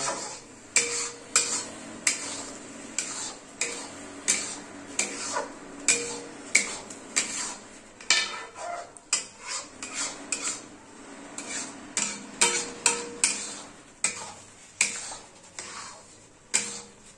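A spatula scraping and knocking against a metal kadhai while stirring thick ground spinach paste as it fries, in irregular sharp strokes about one or two a second.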